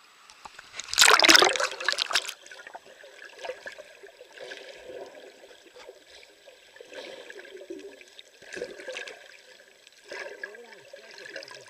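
A loud rush and splash of water about a second in as the camera goes under the surface, followed by muffled underwater sloshing and gurgling, with a couple of brief louder swells near the end.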